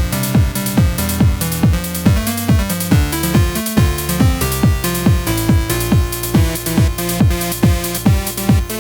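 Electronic dance music with a steady, fast kick-drum beat, about three beats a second, under held synth notes.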